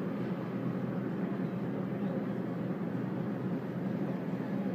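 Steady background noise of a shop, an even hum with no distinct events.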